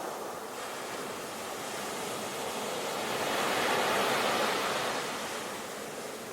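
Ocean waves breaking and washing on the shore, a steady rush of surf that swells to a peak about four seconds in and eases off again.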